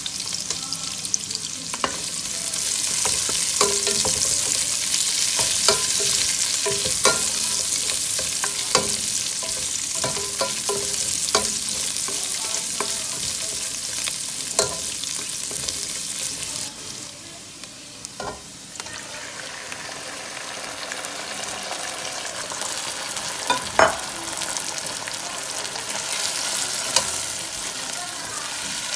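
Onions and garlic, and later pork liver, sizzling in hot oil in a nonstick pan while a spatula stirs, with frequent light clicks of the spatula against the pan. The sizzle drops off a little past halfway and builds again, with one sharper knock of the spatula a few seconds later.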